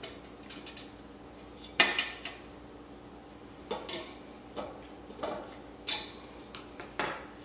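Hand hex driver tightening an M5 screw into a hammer nut on an aluminium extrusion frame: light metallic clicks at irregular intervals, roughly one every half second to second.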